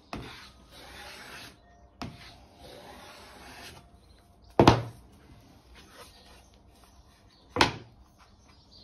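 Two long rubbing strokes by hand along the oak-edged edge of an MDF panel, then two sharp wooden knocks about three seconds apart, the second a little quieter.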